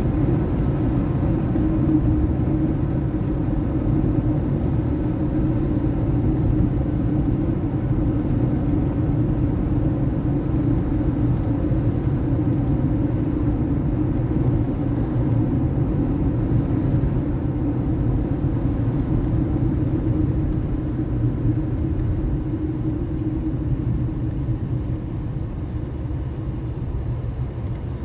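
Car driving, with a steady low engine and road rumble and a held hum, getting a little quieter near the end.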